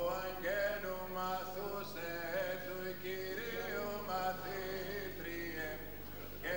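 Male voice chanting the Greek Orthodox liturgy: slow Byzantine chant with long held notes that slide from one pitch to the next.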